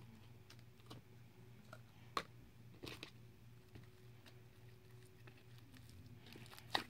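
Crunchy slime with foam beads being stretched and squished by hand, giving a few faint scattered clicks and pops, with a small burst of crackles near the end.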